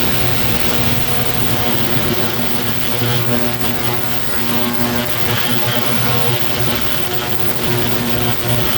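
A steady, loud mechanical hum with an even, buzzing pitch.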